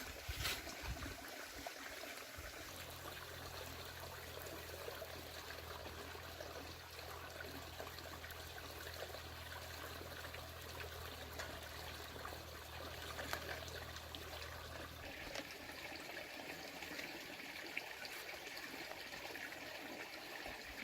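Faint, steady trickling, water-like noise with a few light clicks, and a low steady hum from a few seconds in until about three-quarters of the way through.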